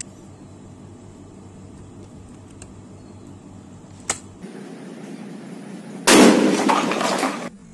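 A 12-bore side-by-side double-barrel shotgun firing a slug: one sudden, very loud blast about six seconds in, its noise hanging on and fading for over a second before it cuts off abruptly. A single faint click comes about two seconds before the shot.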